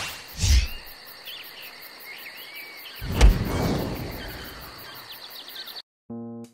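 Outdoor nature ambience of insects chirring steadily with scattered bird chirps, broken by a low thud about half a second in and a heavier thump about three seconds in. The ambience cuts off suddenly near the end, where piano music begins.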